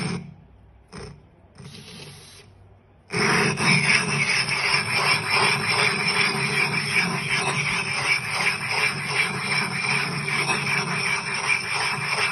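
Glass telescope mirror blank being rough-ground by hand over the grinding tool with coarse abrasive grit, a steady gritty scraping under back-and-forth chordal strokes. The first three seconds are much quieter, and the grinding starts again abruptly about three seconds in.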